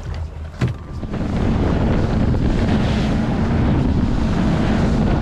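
Twin Mercury Verado 300 V8 outboards running as the boat gets under way, picking up about a second in and then running steadily, with wind buffeting the microphone. A single sharp knock comes just before the engines pick up.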